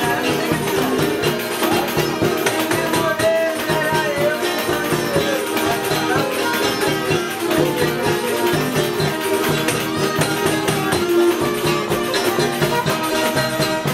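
Live acoustic folk band playing a lively dance tune: strummed acoustic guitars and a small four-string guitar, a fiddle and a hand-beaten drum keeping a steady beat.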